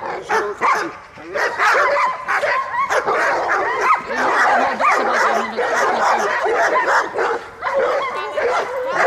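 German Shepherd dogs barking and yelping in rapid, overlapping barks, with hardly a break, as they are worked up by a helper in protection training.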